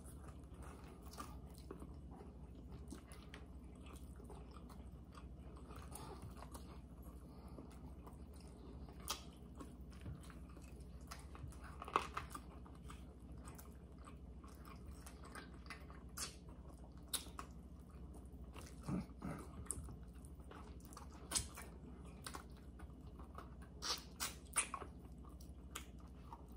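Quiet chewing and gnawing on barbecued baby back pork ribs, with scattered sharp clicks and smacks as meat is pulled from the bones.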